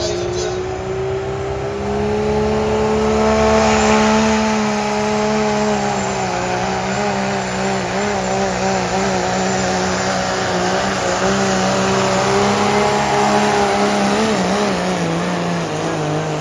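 Diesel pickup engine of a Pro Street class pulling truck running at high revs under load during a sled pull. Its pitch rises over the first few seconds, then holds with a slight wavering.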